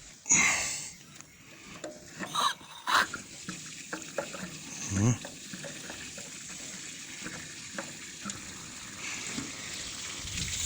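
Hot cooling water from a Т-150К tractor engine pouring out of a fully opened drain tap: a steady splashing hiss, drained so the engine won't freeze overnight. A few short knocks or scrapes break in, the loudest about a third of a second in and near the 5-second mark.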